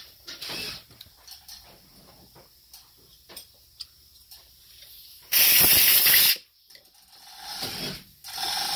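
Small carburetor parts clicking and tapping as they are handled, then a little past halfway a loud, one-second hiss of pressurized spray that cuts off sharply.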